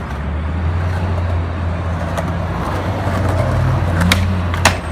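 Skateboard wheels rolling on pavement over a steady low rumble of street traffic, then sharp clacks about four seconds in as the board is popped up against a metal stair handrail.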